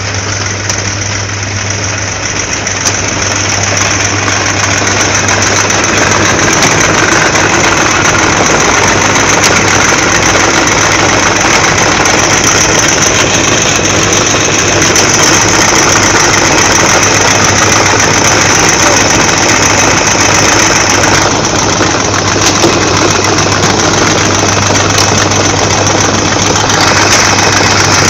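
Electric fruit-chopping mill running with a steady low hum, chopping strawberries tipped into its hopper; it grows louder a few seconds in.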